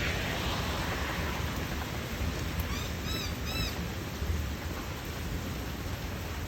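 Steady rain with a low rumble underneath. About three seconds in, a quick run of five or six short, high, arched chirps.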